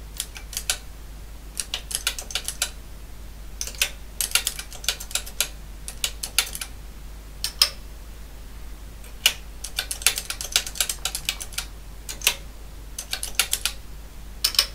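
Keys of a Toshiba TOSCAL BC-1411 nixie tube calculator clicking as numbers are keyed in. The presses come in quick runs of several clicks with short pauses between runs.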